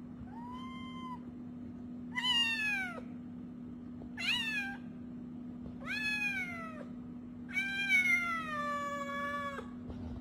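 Young grey cat meowing five times, most calls falling in pitch; the first is soft and the last is long and drawn out.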